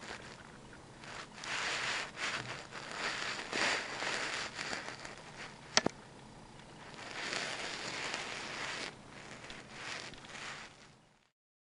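Crackling and rustling of a hamster handling and cramming seeds and pellets into its overstuffed cheek pouches, in irregular bursts with one sharp click about halfway through. The sound fades out near the end.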